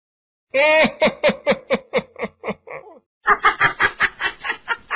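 Mocking laughter in two bursts: a held high note that breaks into a run of quick falling 'ha-ha' pulses, then after a short gap a second, harsher run of rapid laughs.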